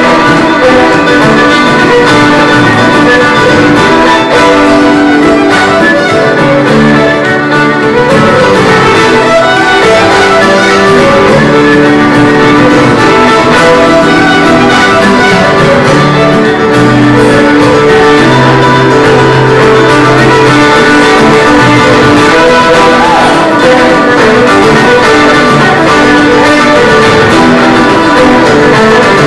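Live band playing an instrumental passage led by fiddle, backed by guitars and keyboard.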